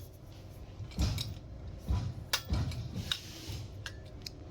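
Metal parts of an electric trike's rear brake and axle clinking and knocking as the brake is fitted onto the axle: a handful of light clicks and dull knocks at irregular intervals.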